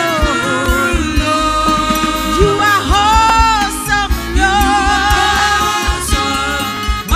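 Live gospel worship music: singing with long, wavering held notes over steady instrumental accompaniment.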